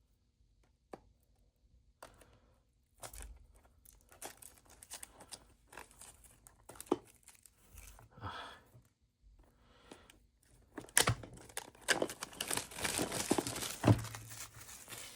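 Speedcube box packaging being torn open and crinkled: scattered rustles and ticks that grow denser and louder over the last few seconds, with a sharp knock near the end.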